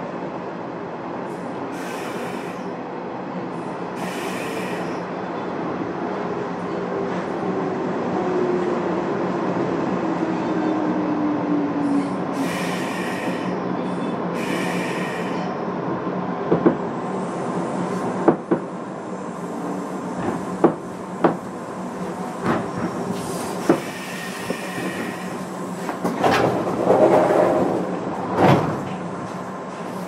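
Running noise of a JR West 201 series electric train heard from inside the car: a steady hum and rumble, with a tone that slides down in pitch about a third of the way in. Sharp clicks and knocks come over the second half, with a brief swell of noise near the end.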